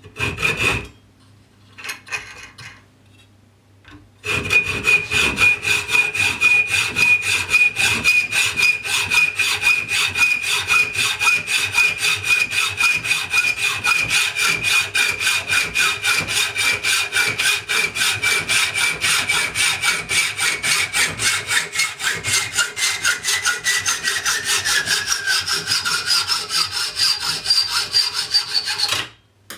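Hacksaw cutting through the threaded bolt of a clamping lever clamped in a vise, to shorten it: a few short strokes, then about four seconds in fast, steady back-and-forth strokes. A high ringing tone rides on the sawing and slides down in pitch near the end, just before the sawing stops.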